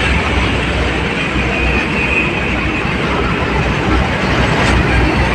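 Heavy truck running: a steady low rumble with constant noise over it.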